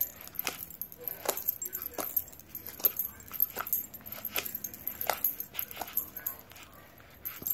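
Fluffy slime being poked and pulled by hand, giving irregular sticky clicks and pops, one or two a second.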